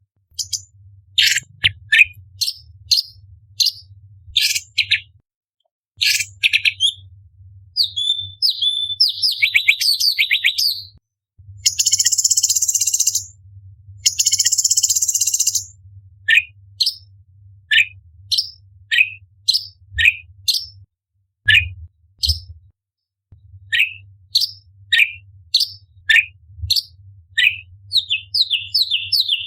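Orange-bellied leafbird singing: a fast series of sharp, downward-slurred whistled notes, broken by a warbling run and then two harsh, buzzy rasps about halfway through.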